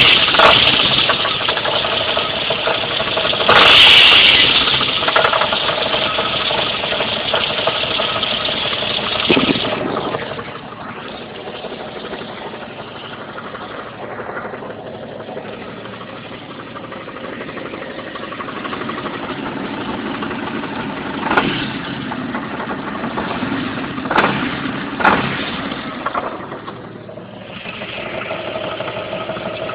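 Jeep Cherokee XJ 4.0L straight-six running with a loud rattling knock that sounds like a bad rod bearing. The cause is loose, finger-tight flexplate-to-torque-converter bolts. The sound gets quieter about ten seconds in, with a few sharp knocks later on, and gets louder again near the end.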